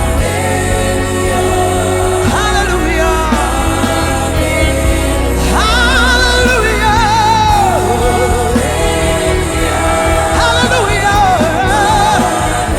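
Gospel song with a band: a lead voice sings long, wavering 'hallelujah' lines over a steady bass, with backing singers.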